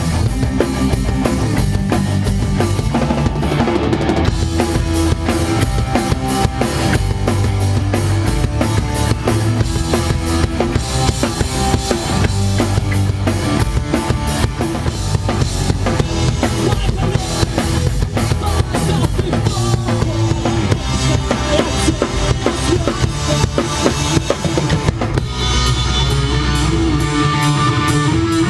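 Alternative/punk rock band playing, the drum kit's bass drum and snare hitting hard and driving a dense, steady full-band sound, without singing.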